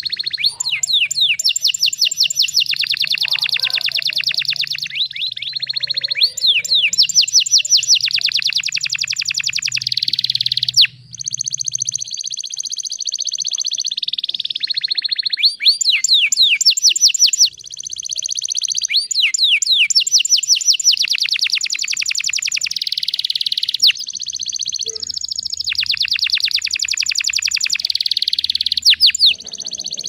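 Domestic canary singing a long rolling song of fast trills, each trill a rapid run of one repeated high note, switching to a new trill every second or two, with a few brief breaks.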